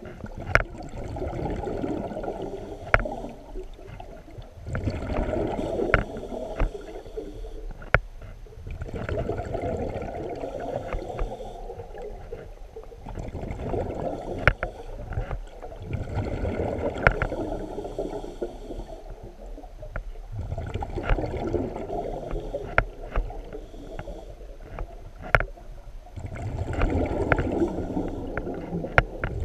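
A diver's breathing heard underwater: bubbly exhalations swelling and fading about every four seconds, with scattered sharp clicks in between.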